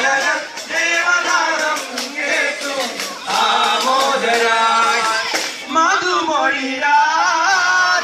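A group of young men singing a Malayalam Christmas carol together into a microphone, amplified through a loudspeaker, with musical accompaniment.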